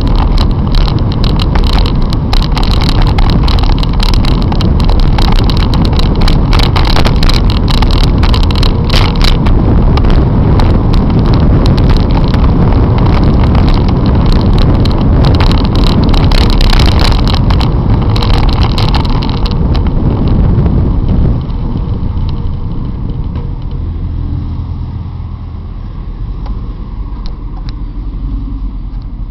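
Loud wind rumble and crackle on a bicycle-mounted camera's microphone while riding in road traffic, dropping down sharply about two-thirds of the way in to a lower, steadier traffic noise.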